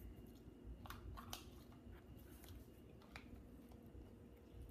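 Near silence: room tone with a few faint taps and clicks of eating utensils against bowls.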